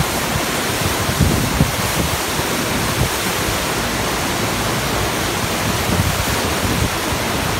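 FlowRider surf simulator's pumped sheet of water rushing steadily over the wave surface as white water, a loud, even rush without a break.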